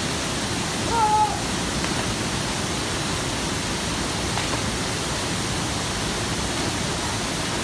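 Waterfall: a steady rush of falling water. A brief pitched sound, bending up and down, comes about a second in.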